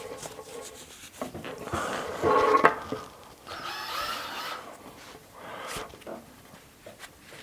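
Double-braid rope and bungee cord rubbing and squeaking as they are worked by hand, the bungee being forced through the rope's hollow braid. The sounds come in irregular stretches, the loudest a few seconds in.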